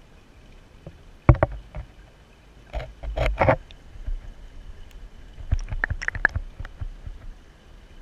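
Sound taken with the camera under water: a muffled, steady low rumble broken by clusters of sharp clicks and knocks, about a second in, around three seconds in, and again around six seconds in.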